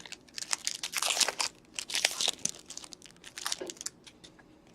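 Wrapper of a 2016-17 Upper Deck Series 1 hockey card pack being torn open and crinkled, a rapid crackling that thins out and stops near the end.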